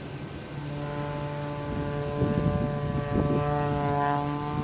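Propeller engine of a smoke-trailing aerobatic plane droning in a dive, heard as a steady stack of tones that swells and sags slightly in pitch. Two brief low rumbles come in about two and three seconds in.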